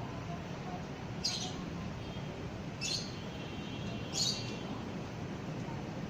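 A small bird chirping three times, short high chirps about a second and a half apart, over steady low background noise; no siren is sounding.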